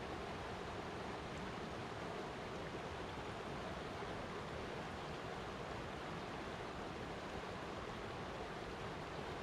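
Flowing water making a steady, even rush with no distinct splashes or changes.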